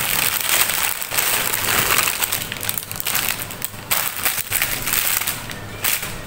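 Clear plastic packaging bag crinkling and rustling as hands open it and pull out the item inside. The crinkling is dense for the first few seconds, comes in scattered bursts after that, and eases off near the end.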